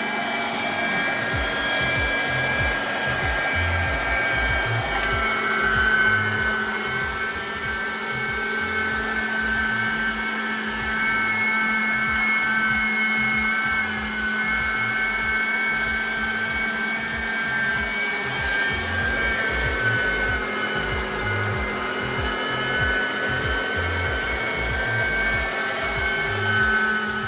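Electric meat grinder running steadily, its motor whirring with a held whine as it minces fish fillets into forcemeat; it cuts off right at the end.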